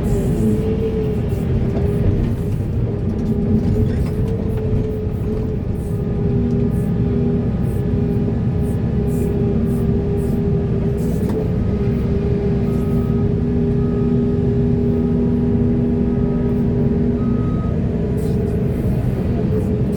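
Heavy earthmoving machinery running steadily: a diesel engine's rumble with a sustained hydraulic whine and scattered light clanks.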